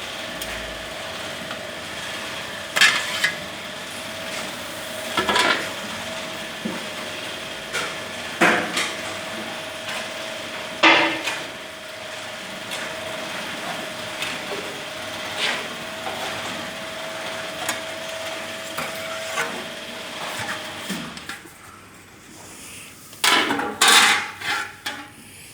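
Roll-forming machine for metal picket fencing running with a steady hum and whine, with sharp metal clanks every two to three seconds as the steel strip feeds through. The machine stops about 21 seconds in, followed by a burst of loud sheet-metal clattering.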